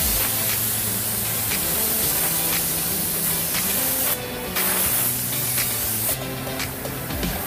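Automotive paint spray gun hissing as it lays a blue metallic waterborne base coat onto a car door and quarter panel. The hiss breaks off briefly about four seconds in and again for the last second or so.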